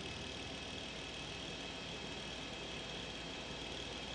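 Steady aircraft engine noise, as heard from the aircraft filming the aerial shot, with a constant high whine over an even rushing drone.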